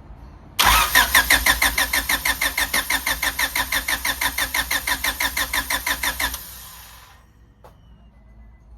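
Honda Civic EK4's starter motor cranking the engine for about six seconds, with an even chugging of about five to six compression pulses a second. The engine does not catch, which is the crank-no-start fault.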